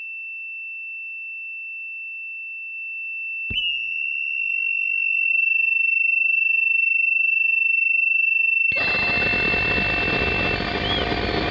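Electronic drone from an experimental film score: a steady, high, pure tone held alone. About three and a half seconds in, a click brings in a second, fuller tone that slowly swells, and about nine seconds in a loud, dense wash of noise floods in over both.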